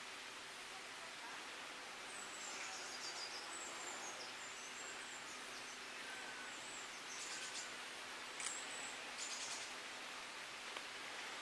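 Faint outdoor ambience: a steady hiss with small birds singing high and thin in the distance from about two seconds in. A few short, crisp clicks come near the middle.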